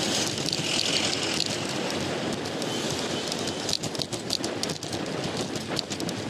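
Road bicycle riding, heard from a handlebar-mounted microphone: steady wind and tyre noise, with sharp irregular ticks and rattles through the second half.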